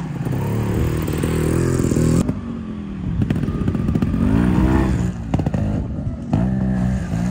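Jeep Gladiator's engine revving as it works off-road, its pitch rising and falling several times, with a few knocks and clatter from the truck.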